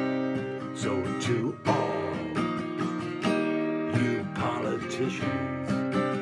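Acoustic guitar strummed in a steady rhythm, about three strokes a second, playing an instrumental passage of chords without singing.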